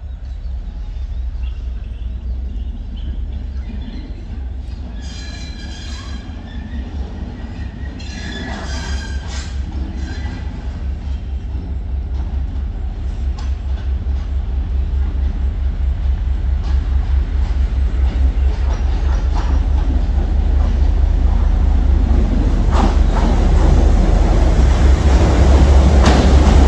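Sri Lanka Railways Class M2 (EMD G12) diesel-electric locomotive running light engine, its diesel throbbing low and steady and growing louder as it approaches. There are a few brief high-pitched squeals about five and again eight to ten seconds in, and sharp clacks of the wheels near the end.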